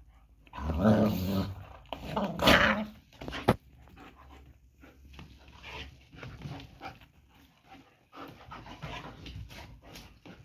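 German shepherds fighting: two loud bursts of growling in the first three seconds, then quieter scuffling with scattered clicks and another stretch of growling near the end.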